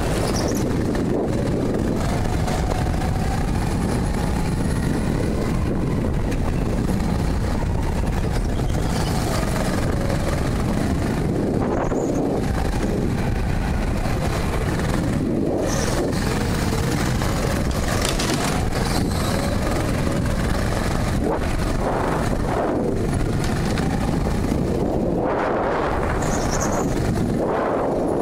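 Go-kart at speed on an indoor track, heard from a helmet-mounted camera: a steady rumble of wind buffeting on the microphone over the kart's motor, whose pitch rises and falls every few seconds.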